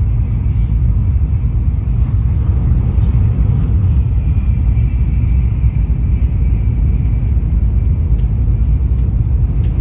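Steady low rumble inside the cabin of a Shinkansen bullet train running at speed, with a faint high whine above it.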